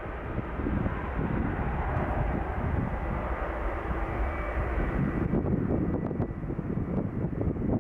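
Boeing 787-8 Dreamliner's twin turbofan engines at takeoff thrust during the takeoff roll: a steady, deep rumble.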